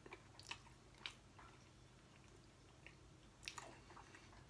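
Faint biting and chewing of a soft cheese sandwich, with a few short mouth clicks, the most distinct about a second in and twice at around three and a half seconds.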